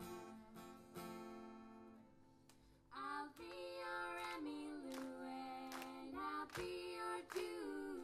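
Acoustic guitar chord ringing out and fading, then about three seconds in a voice starts singing over steadily strummed acoustic guitar.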